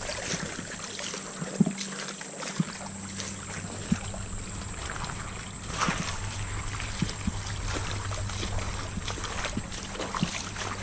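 Footsteps wading and splashing through a shallow creek, with the creek's water running steadily beneath them and a few soft knocks from the steps.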